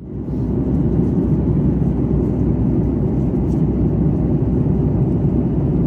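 Steady low rumble of a jet airliner in flight, fading in at the start and holding level.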